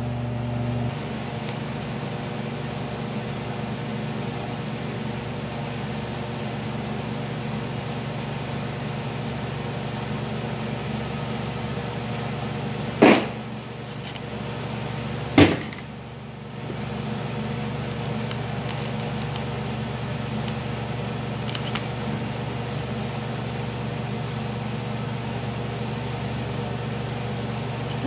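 Steady mechanical hum of workshop background noise, with two sharp knocks about two seconds apart near the middle.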